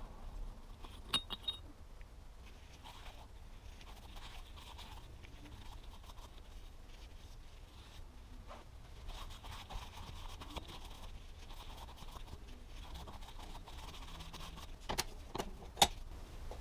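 Greasy metal parts of a front CV axle joint from a 1987 Audi 5000 CS Quattro being handled during teardown: faint scraping and rubbing, with a few sharp metallic clinks about a second in and a louder cluster of clinks near the end.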